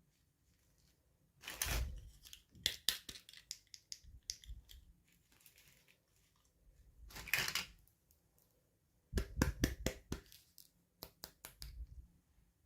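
Toy packaging being handled and opened by hand: two short bursts of rustling or tearing, and runs of quick clicks and taps from plastic and cardboard.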